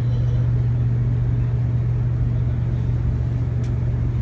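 Twin City Liner passenger boat's engines running with a steady low drone, heard inside the passenger cabin.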